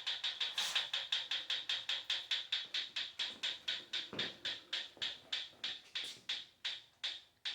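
Proform Power C7L exercise bike ticking in a regular rhythm, about seven ticks a second at first and slowing steadily to about three a second. The owner says this tick keeps getting louder and more frequent, along with a growing wobble in the wheel, although nothing is loose and nothing visibly rubs.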